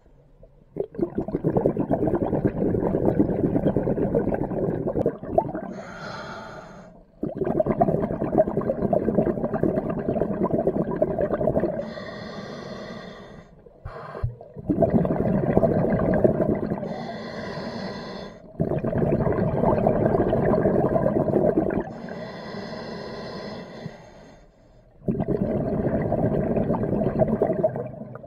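Scuba diver breathing through a regulator underwater: long bubbling exhalations of about four seconds each, separated by short hissing inhalations, about five breaths in all.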